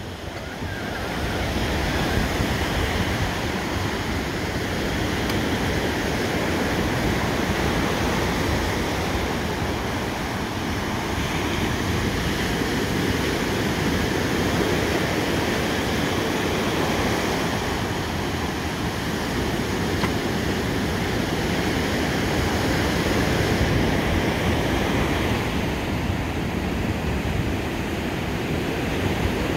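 Sea surf breaking and washing up a beach, with wind: a steady wash of noise with no single sounds standing out.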